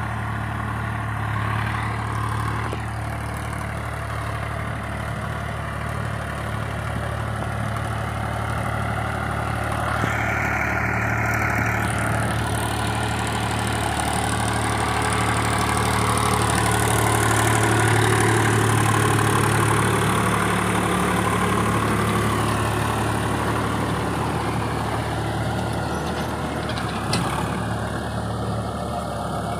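VST Shakti Viraaj 9045 DI tractor's diesel engine running steadily under load while pulling a rotavator through grass and soil, over a rough noise from the working rotavator. It grows a little louder around the middle.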